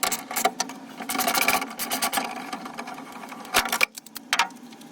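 Rapid mechanical clicking and rattling over a steady low hum as a fitting is unfastened in a Toyota Land Cruiser 75 Series cab, dense for about three and a half seconds, then a few separate knocks.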